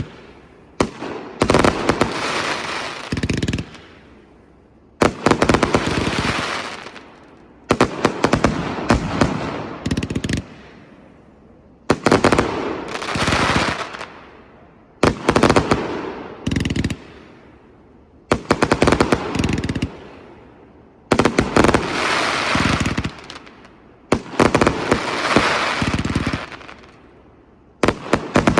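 160-shot firework cake with hitter (salute) shells firing in about ten volleys, roughly one every three seconds. Each volley is a rapid string of loud bangs that dies away in echo before the next one.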